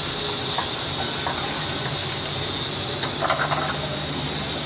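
Steady hiss of a pan of moong dal boiling hard on the stove as its water is reduced, with a low steady hum beneath.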